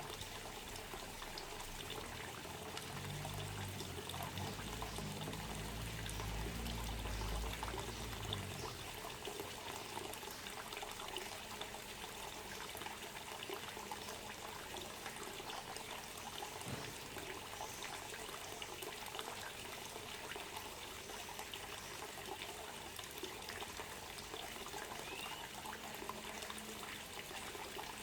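Steady trickling, running water, with a low rumble for a few seconds between about three and eight seconds in.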